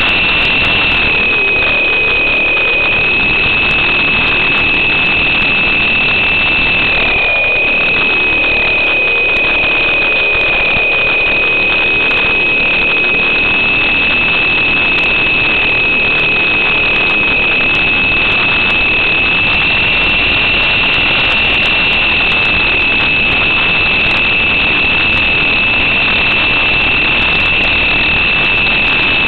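Electric motors and spinning rotors of a small coaxial RC helicopter, heard up close from its onboard camera: a loud, steady, high-pitched whine over hiss. The pitch dips slightly about a second in and again about seven seconds in as the throttle shifts.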